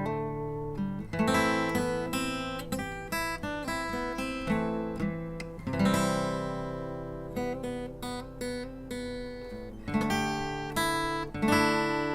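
Outro music: acoustic guitar picking and strumming.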